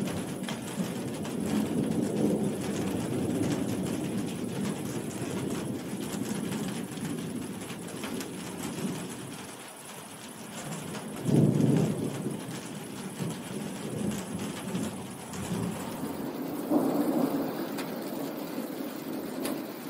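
Heavy rain falling steadily with thunder rumbling over it, swelling and fading three times: a long roll in the first few seconds, a stronger roll about halfway through, and another near the end.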